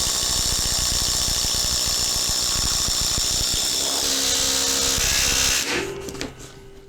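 Ryobi ONE+ HP brushless impact driver on its third speed setting, hammering continuously under heavy load while boring with a paddle bit, trigger held fully in. The tone shifts around four seconds in, and the tool stops shortly before six seconds.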